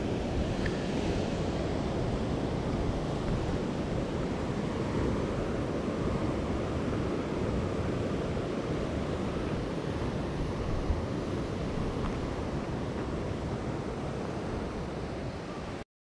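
Steady wash of ocean surf mixed with wind buffeting the microphone; it cuts off abruptly near the end.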